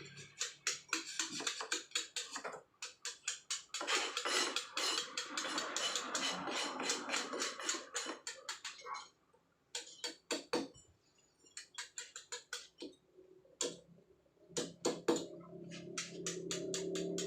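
Hammer striking a steel chisel to carve soft paras Jogja stone by hand: quick runs of sharp taps, several a second, with short pauses about nine and eleven seconds in.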